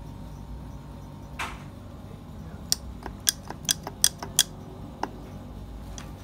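Metal clicking from an opened Fiat Palio manual gearbox as a hand moves its gears and selector parts, showing the play that kept the gears from engaging. A quick run of sharp clicks falls in the middle, with single clicks after it, against a low steady background.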